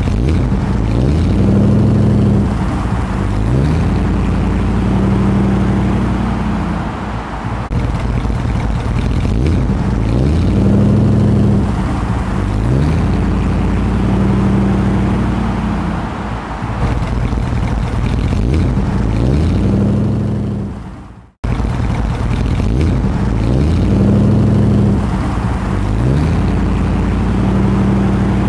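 V8 engine in a 1972 Vauxhall Firenza, idling and blipped again and again, the revs rising and falling every second or two.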